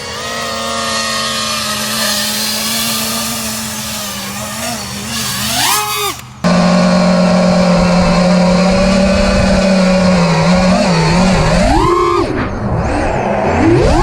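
Small RC aircraft's electric motors whining at a steady pitch, with quick rises in pitch on throttle bursts. Six seconds in, the sound cuts off abruptly and starts again slightly lower and louder.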